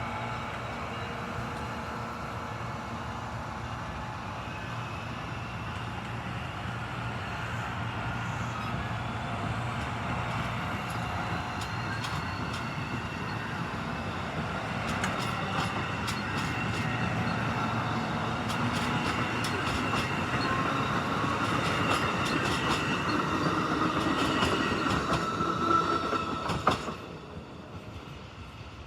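A train rolling past, growing steadily louder, its wheels clicking over the rail joints, until the sound drops away suddenly near the end.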